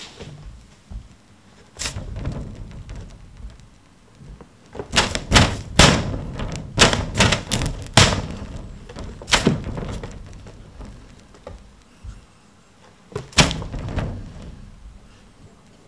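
Irregular knocks and thumps as a kitten paws and bats at pieces of tuna hanging on strings from a wooden rod inside a wire-mesh enclosure. The knocks come in a flurry a few seconds in, then one more sharp knock near the end.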